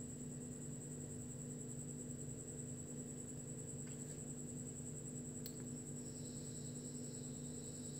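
Steady low electrical-sounding hum with a thin constant high tone above it, a couple of faint clicks about four and five and a half seconds in, and a faint higher whine in the last two seconds.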